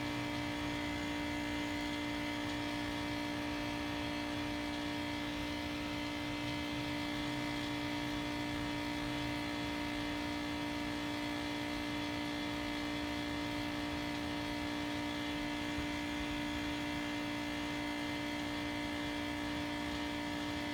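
Steady machine hum holding several fixed tones, the strongest one low, with no change in level or pitch.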